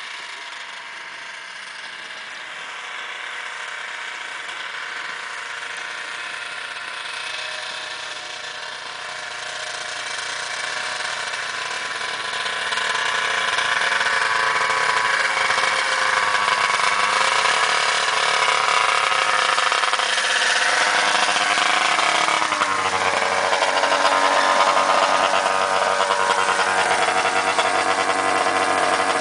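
Arctic Cat ZR 580 snowmobile's two-stroke twin engine running as the sled comes closer, growing louder over the first dozen seconds. A little past the middle its pitch drops as it slows, and it then runs steadily right beside the listener.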